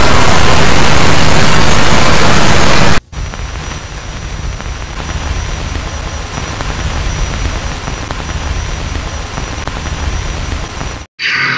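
Very loud static hiss that cuts off sharply about three seconds in. Quieter static follows, with a low rumble and a faint steady high whine, like an off-air TV signal. It drops out for a moment near the end, just as music begins.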